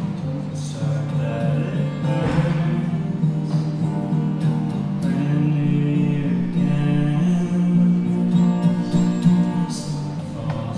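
Solo acoustic guitar being played, with a man singing over it.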